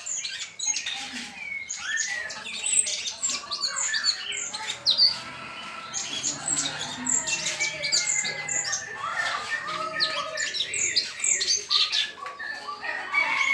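Caged cucak cungkok (blue-winged leafbirds) singing without a break: a fast, busy stream of chirps, quick trills and short whistles.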